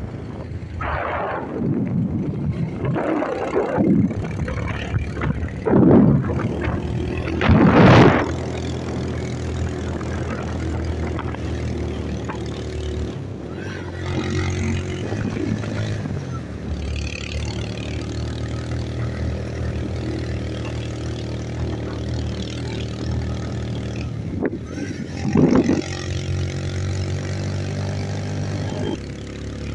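A vehicle engine running steadily as it travels along a road, its hum shifting in pitch a few times. Several loud rushing swells in the first eight seconds and one more near the end.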